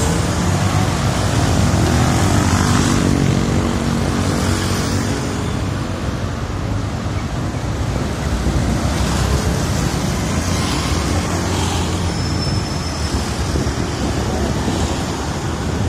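Dense street traffic of motor scooters and cars passing close by, their engines running in a continuous stream, with one engine note standing out in the first few seconds.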